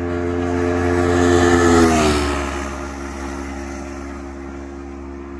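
A motorcycle passes at high speed. Its engine note builds to a peak about two seconds in, drops in pitch as it goes by, and then fades away.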